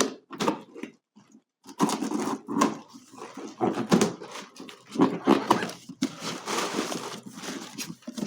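A cardboard box being opened and its packing paper rustled, crinkled and pulled out, in irregular bursts after a short pause near the start.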